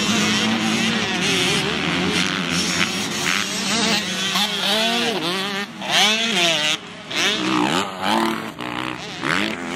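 85cc two-stroke motocross bike engine running hard. It holds a fairly steady note at first, then from about four seconds in the revs rise and fall quickly several times as the rider throttles through the turns and jumps.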